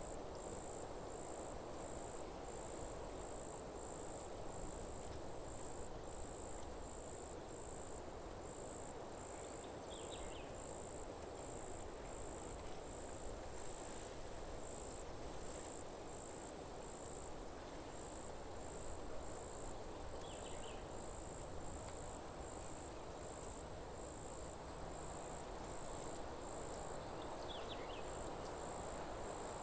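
Insects chirping in a steady, high, evenly pulsed rhythm of roughly one and a half pulses a second, over a steady low rushing hiss. Three faint short chirps stand out, about ten seconds apart.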